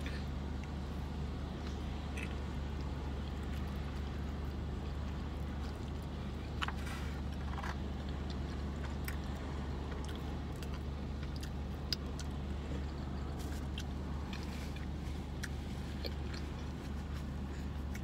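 Chewing and biting, with small scattered clicks from the paper wrapper and foil pan being handled, over a steady low hum in the car's cabin.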